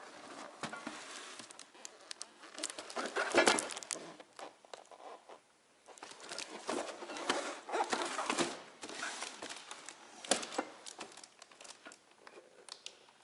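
A cardboard product box being handled and turned over, rustling and crinkling in irregular bursts, with a sharp knock about ten seconds in.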